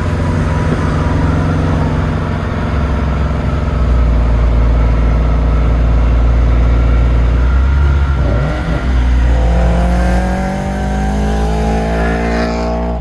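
Scion FR-S's 2.0-litre flat-four engine running as the car drives. The engine note breaks briefly about two-thirds of the way through, then rises steadily as the car accelerates.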